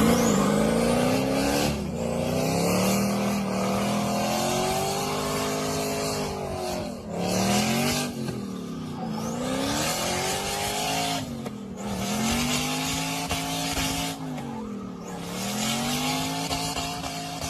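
Car engine running hard, its pitch climbing and then dropping sharply several times, with dips about 7, 9, 12 and 15 seconds in, like repeated acceleration and easing off or gear changes.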